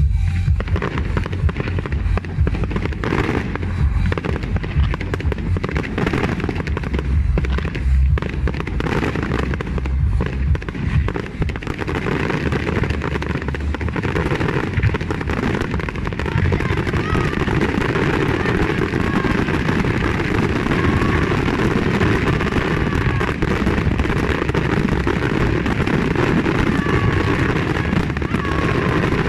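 Fireworks going off in quick succession: separate bangs in the first part, then a dense, continuous crackle of many small reports through the rest.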